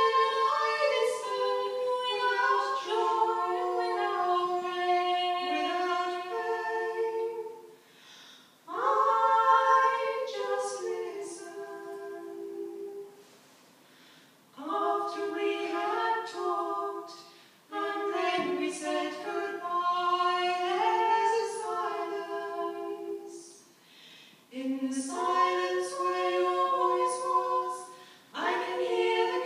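Two women singing unaccompanied in harmony, in sung phrases with short breaks between them.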